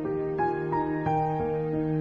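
Background music: a slow melody of held notes, a new note starting a few times, over a sustained low note.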